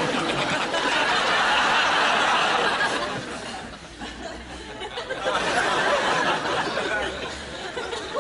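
Audience laughter in two waves: a long swell over the first three seconds, then a second one about five seconds in.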